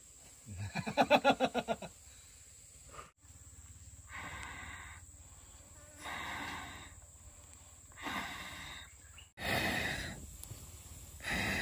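A person blowing hard on the embers of a wood cooking fire to kindle it: a sputtering burst of blowing, then a series of long, forceful breaths about a second each and roughly two seconds apart.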